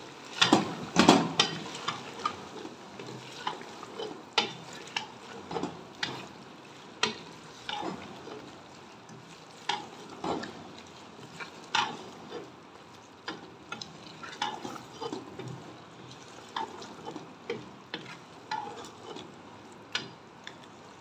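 A wooden spatula stirring mutton and chopped spinach in a pressure cooker pot, scraping and knocking against the metal at irregular intervals, over a steady sizzle of the meat and greens frying in oil.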